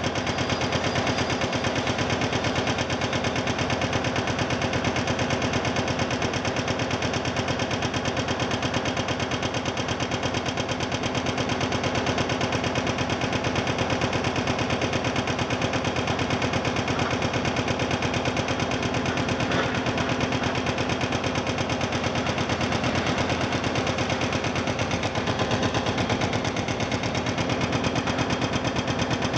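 Heavy demolition excavator's diesel engine running steadily, with a fast, even rattling pulse throughout.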